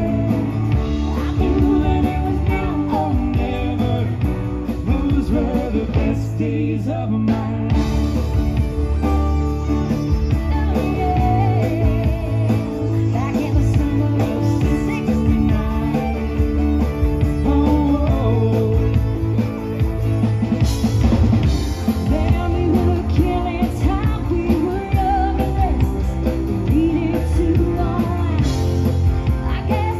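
Live rock cover band playing through a PA: electric guitars, bass, drum kit and keyboards with a woman singing lead, loud and continuous.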